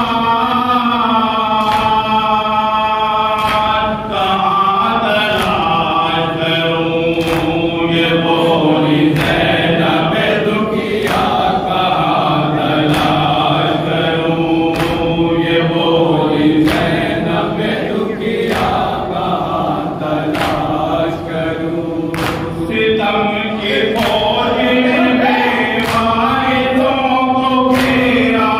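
Male voices chanting a noha, a lead reciter on a microphone with others joining in, over a steady beat of palms striking chests (matam) a little under once a second.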